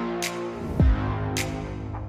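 Background music with sustained notes, a deep bass hit that drops in pitch just under a second in, and two sharp percussion hits.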